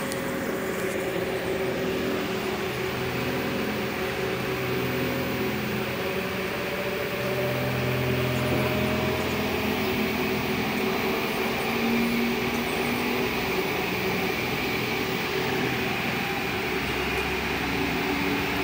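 Cable caterpillar haul-off machine running: a steady mechanical hum of its drive, with a faint tone that slowly rises in pitch partway through.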